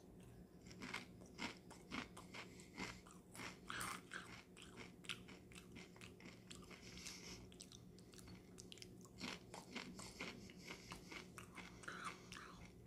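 Doritos Spicy Sweet Chili tortilla chips being bitten and chewed with the mouth close to the microphone: a faint run of irregular crunches.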